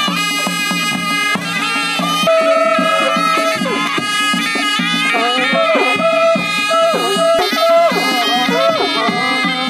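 Nepali panche baja wedding band playing: shehnai-type reed pipes play a wavering melody that slides and bends in pitch over a steady, quick dhol and damaha drum beat.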